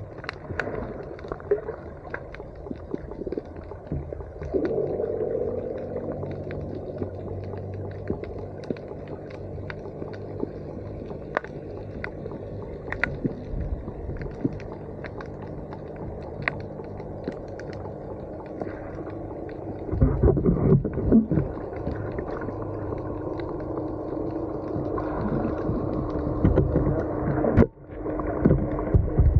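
Underwater sound picked up by a snorkeler's camera: muffled water noise with scattered clicks and a steady low hum. Louder low rushing of water comes in about two-thirds of the way through, and there is a brief dropout near the end.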